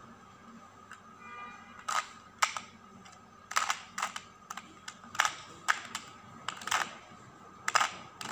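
Plastic 2x2 Rubik's Mini cube being turned by hand: its layers click as they snap round, a dozen or so sharp clicks at irregular intervals starting about two seconds in.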